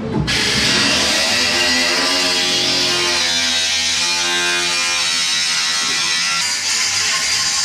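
Background music led by a distorted electric guitar.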